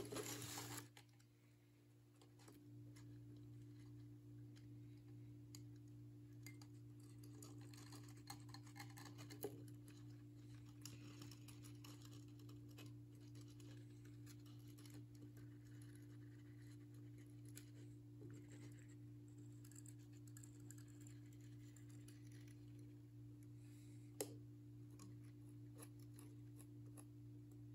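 Near silence with a steady low hum, over which come faint scattered clicks and rustles of hands handling the subwoofer's cone and parts during gluing, with one sharper click about 24 seconds in.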